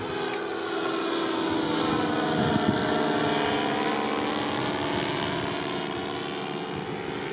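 Twin-engine propeller airplane flying past overhead, its engines droning steadily. The pitch bends as it passes, and the sound is loudest about two to four seconds in.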